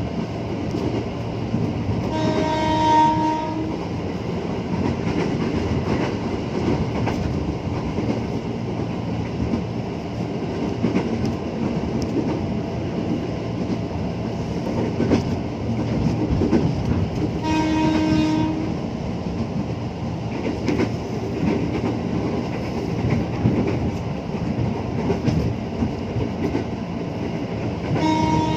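Electric commuter train running, a steady rolling and rail noise heard from inside the car, with three short horn blasts: about two seconds in, midway, and at the very end.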